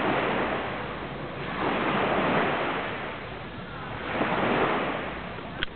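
Small waves washing onto a sand beach, surging and receding three times, about every two seconds. A short click sounds right at the end.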